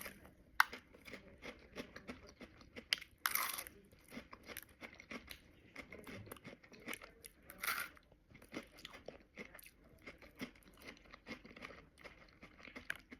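Chewing of a crunchy Kinder Happy Hippo wafer snack: many small crisp crunches a second, with a few louder crunches about three seconds in and again near eight seconds in.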